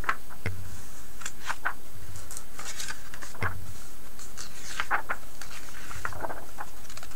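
Glossy pages of a thick paperback catalog being turned by hand, one after another: a string of short paper swishes and flicks, with a few soft thumps.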